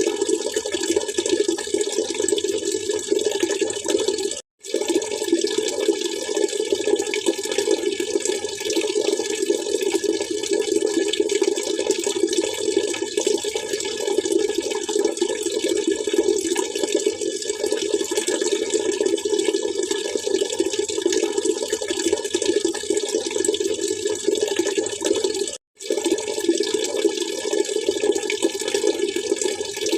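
Water splashing and trickling steadily. The sound drops out twice, for a split second, about four seconds in and again near the end.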